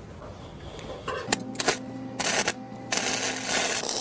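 Electric arc welding on steel: a steady welder hum starts about a second in, with bursts of arc hiss and crackle, the longest near the end.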